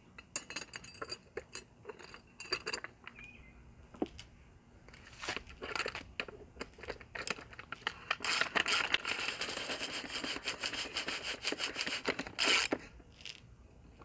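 Ratchet wrench clicking rapidly as it tightens a nylon locking nut onto a transom wheel's axle bolt, with a louder knock near the end. Before the ratcheting, light metal clinks of the nut, washer and bolt being handled.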